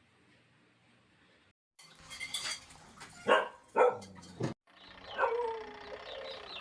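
A dog barking twice in quick succession about halfway through, each bark short, loud and falling in pitch.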